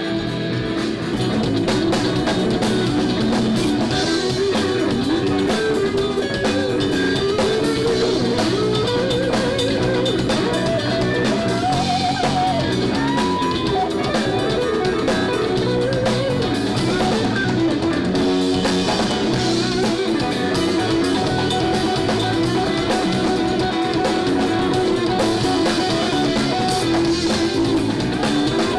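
Live blues band playing an instrumental passage: electric guitar with bending, gliding notes over electric bass and a drum kit.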